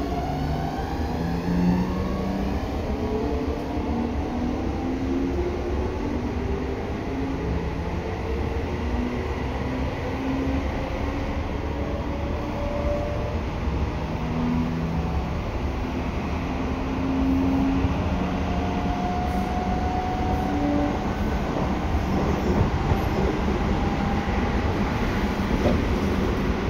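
Seibu 6000 series train's Hitachi GTO-thyristor inverter and traction motors under way, heard on board: the inverter whine climbs in pitch in steps as the train gathers speed, over a steady rumble of wheels on rails.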